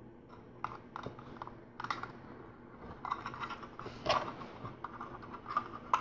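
Small plastic LEGO pieces clicking and tapping as they are handled and pressed together: irregular, quick clicks that grow busier partway through.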